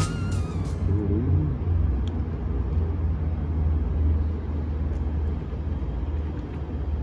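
Steady low rumble of a vehicle running slowly, with background music fading out in the first half second.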